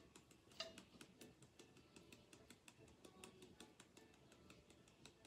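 Fine glitter sprinkled from a shaker-top container, pattering onto a tumbler and paper as faint, irregular light ticks, several a second, one a little louder about half a second in.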